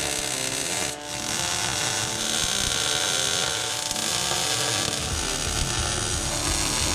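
Background music laid over the buzzing crackle of a MIG welder plug-welding a steel floor pan.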